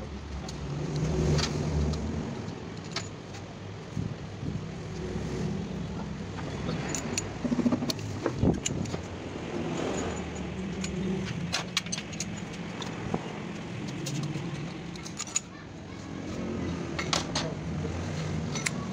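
Light metallic clinks and taps of engine parts being handled (pistons, connecting rods and bearing shells), over a steady low motor rumble.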